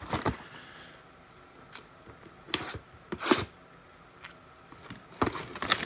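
Trading card hobby box and its foil packs being handled and opened: a few sharp scrapes and clicks, then steady rustling of packaging near the end.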